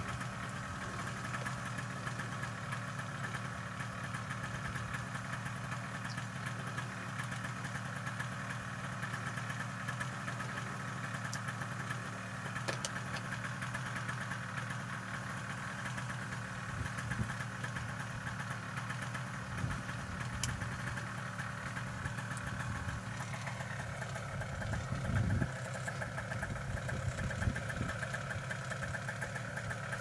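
Two-stroke paramotor engine idling steadily, its pitch rising a little in the last third, with a brief low bump near the end.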